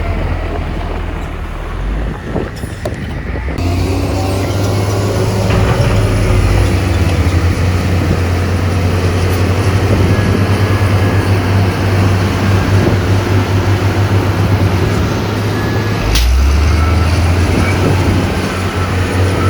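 Heavy diesel engine of earthmoving equipment running steadily under load, with a deep hum. There is a sharp click about sixteen seconds in.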